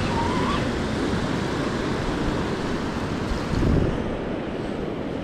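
Surf washing on the beach with wind buffeting the microphone; a brief louder low rush about three and a half seconds in.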